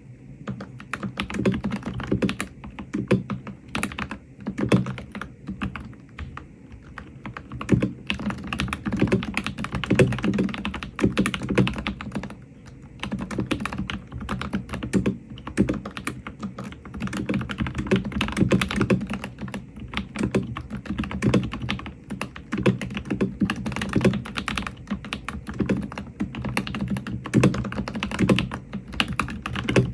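Continuous fast typing on a mechanical keyboard fitted with hand-lubed Akko V3 Cream Blue tactile switches: a rapid, irregular run of keystrokes, each with a deep, low bottom-out and a light click.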